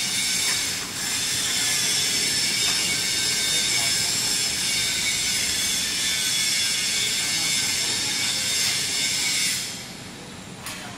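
Welding column-and-boom manipulator moving under motor drive: a steady high-pitched metallic whine and squeal that cuts off about nine and a half seconds in.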